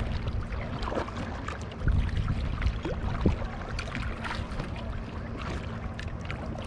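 Water splashing and lapping around a Grabner Holiday 2 inflatable kayak as it is paddled, with many small irregular splashes. A steady low rumble of wind on the microphone runs under it.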